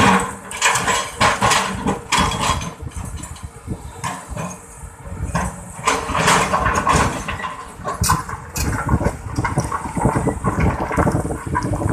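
Excavator's diesel engine running and working, its sound swelling and easing every second or two, with scattered knocks and clatter throughout.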